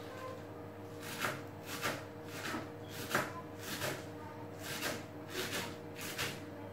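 Kitchen knife chopping salad vegetables on a plastic cutting board: about eight separate cuts, one roughly every two-thirds of a second, over a steady low hum.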